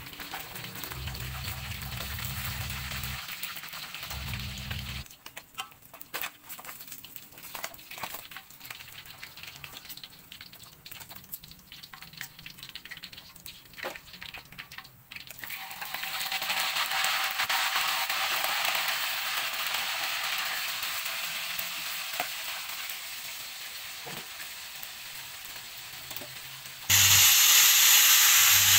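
Fish frying in hot oil in a wok, sizzling while it is turned with tongs, then a quieter stretch of scattered clicks and clatter as the fish is lifted out. The oil left in the wok hisses steadily, and near the end a sudden, much louder sizzle breaks out as chili paste is poured into it.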